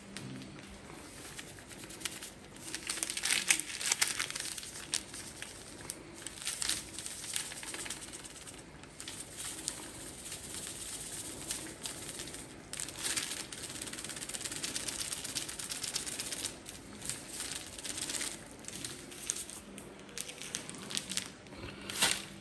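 Thin plastic bag crinkling and rustling as it is handled, in irregular bursts.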